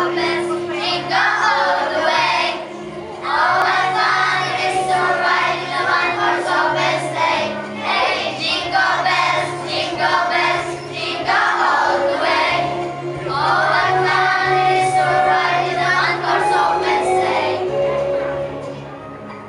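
A group of children singing a song together in sung phrases over a recorded instrumental backing track. The singing stops shortly before the end.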